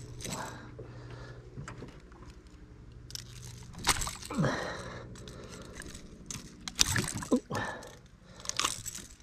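A lively fish being unhooked in a landing net at the boat's side: scattered sharp clicks and rattles as pliers work the lure's hooks free, with splashes as the fish thrashes in the water.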